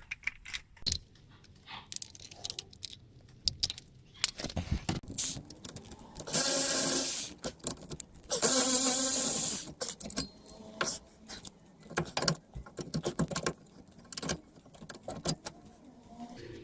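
A cordless power tool runs in two bursts of about a second each, undoing the brake caliper's bolts so the caliper can come off, among scattered clinks and knocks of metal tools and parts.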